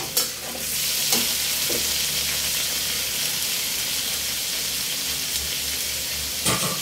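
Chicken sizzling steadily in a hot steel wok as a metal spatula stirs it, with a few sharp knocks of the spatula against the wok near the start and one more near the end.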